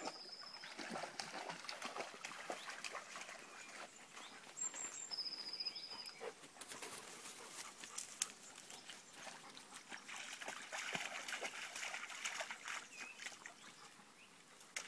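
A dog wading in a shallow stream and pushing through long grass: faint, irregular splashing and rustling.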